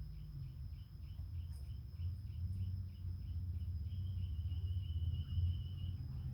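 Insects chirping: a faint, even chirp about four times a second that gives way to a continuous trill about four seconds in, over a steady high whine and a low background rumble.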